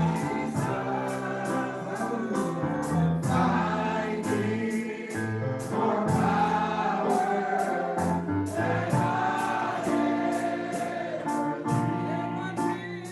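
Gospel worship music: a choir singing, with keyboard, bass and drums keeping a steady beat.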